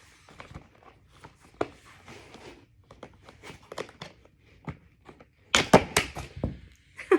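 Hard plastic parts of a high-back booster seat being worked by hand: the head support and its adjustment lever clicking and knocking against the backrest as the head support is tugged, with a louder run of knocks about five and a half seconds in.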